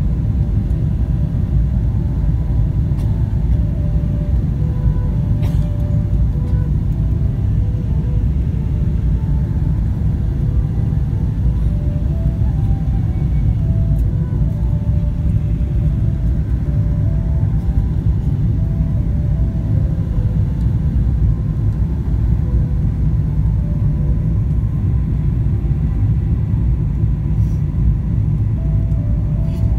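Steady low rumble of a jet airliner's engines and airflow heard inside the passenger cabin during the descent on approach to landing.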